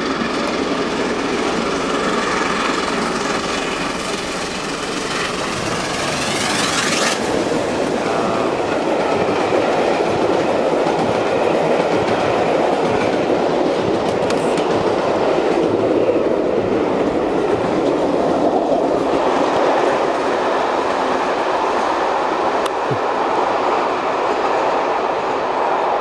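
Steam-hauled passenger train passing close by: the Peppercorn A1 Pacific locomotive 60163 Tornado and its coaches rolling past in a steady, loud rumble that swells through the middle and eases slightly near the end.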